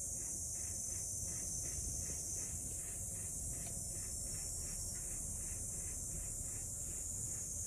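Cat urinating in a litter box of wood-pellet litter: a faint, steady hiss.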